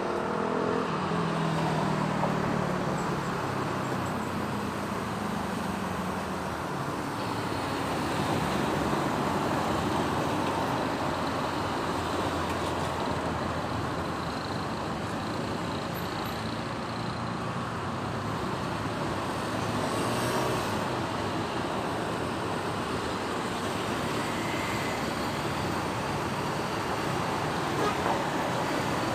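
Steady city road traffic: cars and other vehicles running past, a continuous wash of engine and tyre noise, with a low engine hum standing out in the first few seconds.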